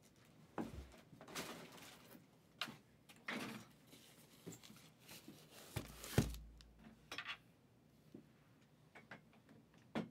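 Cardboard case box being handled and moved right in front of the microphone: scraping and rustling with several knocks, the loudest a sharp thump about six seconds in.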